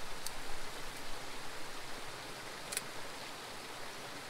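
Steady rushing outdoor noise, with two faint brief ticks, one just after the start and one about two-thirds of the way through.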